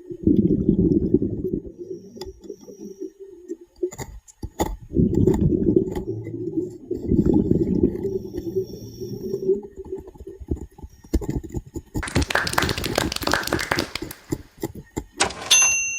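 Scuba diver breathing underwater: long bubbling rumbles of exhaled air from the regulator, twice, then a rushing hiss of breath drawn through it. A short high tone sounds right at the end.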